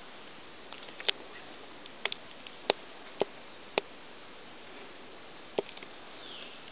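Sharp, irregular clicks, seven or so spread over several seconds, two of them close together, over a steady hiss.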